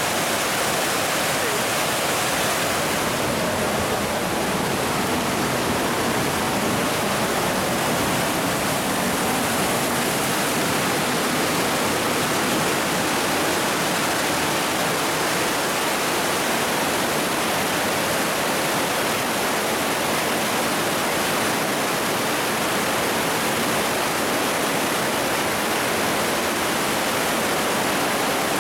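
Partnach river in spate after a rainstorm, rushing white water through the narrow limestone gorge with a waterfall pouring into it: a steady, unbroken rush of water.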